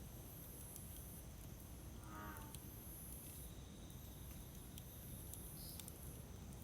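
Wood campfire crackling faintly, with scattered sharp pops over a steady low hiss. A steady high insect chirring runs underneath, and about two seconds in a short animal call falls in pitch.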